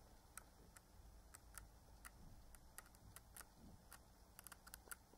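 Near silence with faint, scattered small clicks and ticks from the paper pages of a thin booklet being turned and handled.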